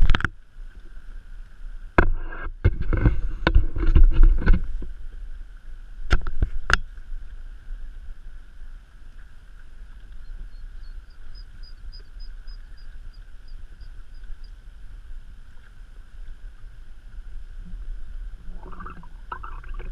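Kayak on the water: a series of sharp knocks and bumps with low, heavy rumbling in the first several seconds, then a steady watery hiss. A faint run of high chirps comes near the middle.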